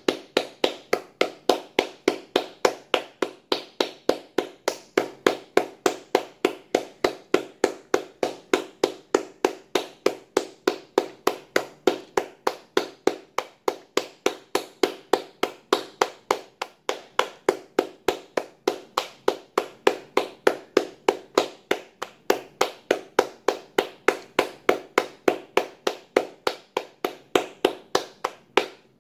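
One person clapping his hands in a steady rhythm, about three claps a second, kept up for the whole stretch.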